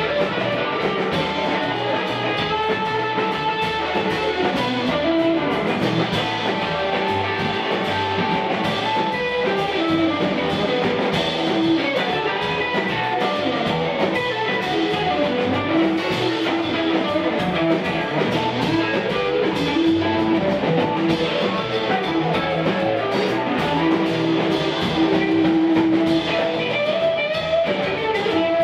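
Live blues band playing an instrumental passage: an electric guitar carries the lead with held and sliding notes over a drum kit and an upright double bass.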